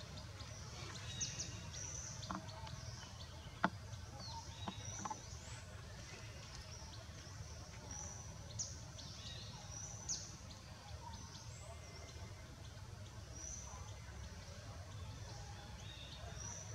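Outdoor ambience under trees: many short, high chirps and squeaks, scattered and irregular, with a few sharp clicks over a faint, steady low rumble.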